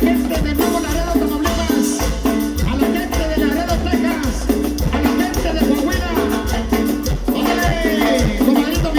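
Recorded Latin dance music: a band plays with a steady bass line, a regular percussion beat and melodic lines on top.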